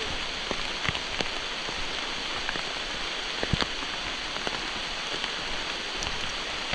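Steady rain falling, a constant hiss with scattered sharper drops striking close by, one louder drop about three and a half seconds in.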